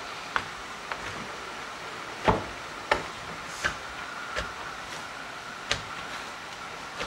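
Dough being worked by hand in a bowl: irregular knocks and taps, about one a second, the loudest about a third of the way in, over a steady high hum in the background.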